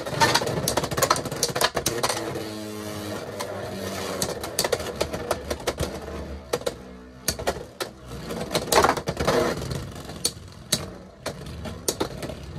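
Two Beyblade X spinning tops, Tyranno Beat 4-80 Rush and Phoenix Wing 7-60 Rush, whirring in a plastic stadium with rapid clacking collisions and rattling where they ride the toothed Xtreme rail. A denser burst of clatter comes about nine seconds in.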